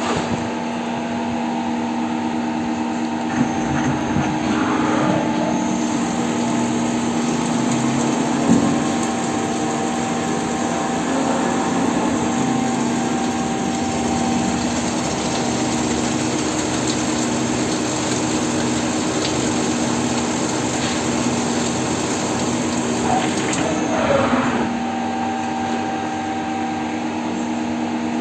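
CNC lathe running a turning job, with a steady machine hum under it. From about six seconds in to about twenty-four seconds a steady hiss of cutting joins, with a couple of brief knocks.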